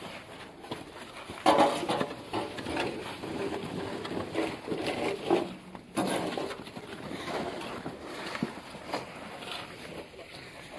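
Several snow shovels and plastic scoops scraping and digging into wet, heavy snow in irregular strokes, the loudest about a second and a half in.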